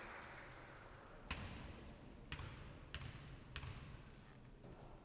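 Basketball bouncing on a wooden court floor: four separate bounces about a second apart, each with a short echo.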